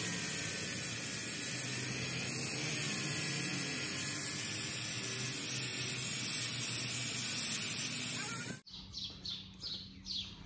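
Handheld angle grinder with an abrasive disc running steadily against the steel jaws of a pair of pliers. It cuts off abruptly near the end, giving way to a bird's run of short, quick chirps.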